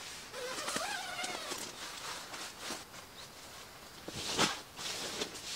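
Tent fabric rustling as an inner-tent panel is handled, with a faint wavering whine in the first second or so. About four seconds in, a blanket is shaken out with a single loud flap.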